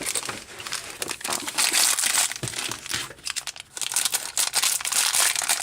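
Small plastic bag of LEGO pieces crinkling and crackling continuously as it is handled and opened.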